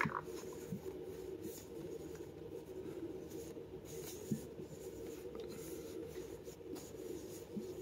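Hands turning over and rubbing a hand massager's smooth plastic casing: faint scraping and rustling, with a light knock about four seconds in, over a steady low hum.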